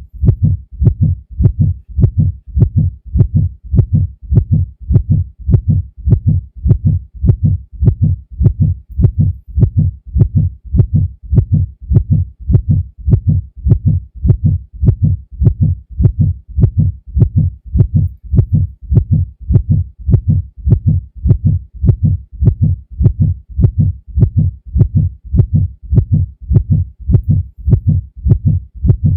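Heartbeat sound effect: low, deep lub-dub thumps repeating at a steady, even pace.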